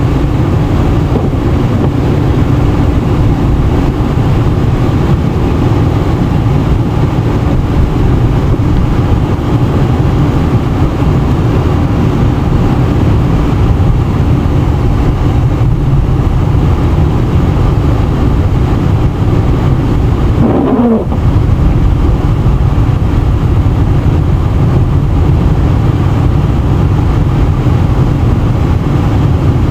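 Car being driven: a steady low rumble of engine and road noise, with a short falling squeak about two-thirds of the way through.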